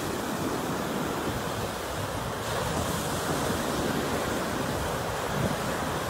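Ocean surf: small waves breaking and foam washing up a sandy beach, a steady rushing noise that grows hissier about two seconds in.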